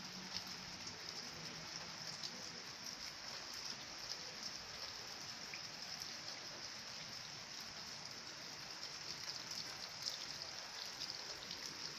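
Hail mixed with rain falling steadily on a paved patio and garden, with many small sharp ticks of hailstones striking.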